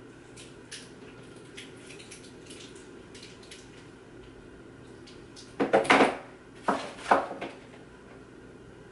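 Small hard objects being handled and set down: a few light clicks, then two bursts of clattering about six and seven seconds in, over a steady low room hum.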